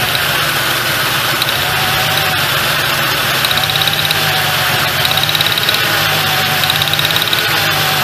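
Ford Ranger 4.0L V6 idling with a solid misfire, caused by a bad spark plug. A fast ticking comes in about halfway through.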